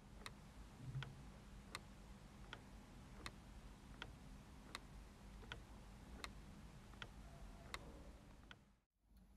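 A clock ticking faintly and steadily, about four ticks every three seconds, stopping abruptly near the end.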